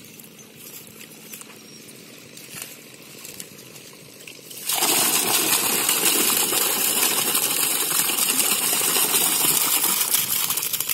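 Water and a mass of small fish poured from a metal pot into a netted trap enclosure standing in the canal, splashing and gushing steadily. The pour starts suddenly about halfway through, after a quieter stretch with a few faint clicks.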